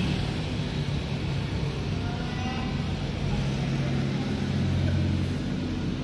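Low hum from a Panasonic CS-S10HKP inverter air conditioner's indoor unit running with its blower stuck, so it does not spin freely and the unit is very noisy.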